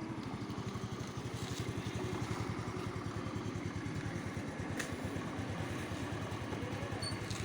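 Vehicle engine running steadily on the move, with fast, even firing pulses and no change in pace.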